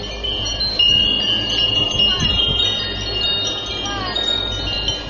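Wind chimes ringing: several high tones overlapping and ringing on, over a low steady rumble.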